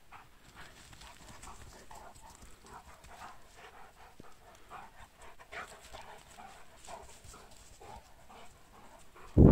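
Two large dogs play-fighting, making quiet, irregular short mouth and scuffling sounds. Right at the end a sudden loud rush of wind noise on the microphone takes over.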